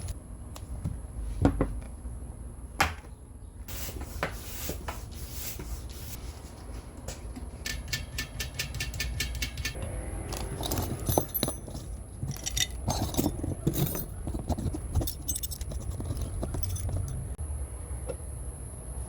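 Small metal parts and tools clinking, knocking and scraping during hands-on bicycle work, with a short run of rapid, even ticks about eight seconds in.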